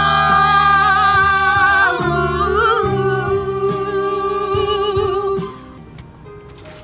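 Song with a singer holding one long, wavering note over the backing music for about five seconds. Then it drops to a much quieter passage near the end.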